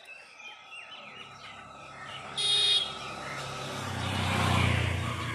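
Motorcycle engine approaching and passing close by, its low hum growing louder to a peak about four and a half seconds in. A short high beep sounds about two and a half seconds in, and birds chirp faintly in the first two seconds.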